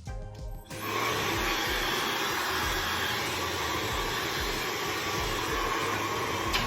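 Laifen hair dryer switched on about a second in, then blowing steadily at an even, unchanging level.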